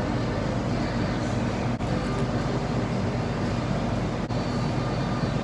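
Steady low rumble and hum of a large indoor space's ventilation, with a faint wash of room noise, broken by two very brief dropouts about two and four seconds in.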